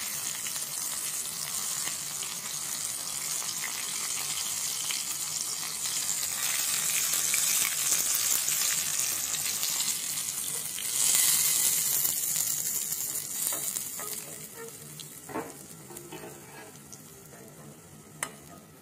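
Flour-coated prawns deep-frying in hot oil in a metal wok, a steady sizzle that grows louder towards the middle and then dies down as the prawns come out of the oil. Two sharp clicks near the end.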